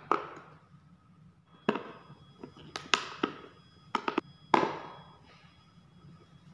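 Screwdriver and small steel screws clicking and tapping against the plastic housing of an oscillating multi-tool as the housing screws are undone: a series of sharp separate clicks, a few followed by a short metallic ring.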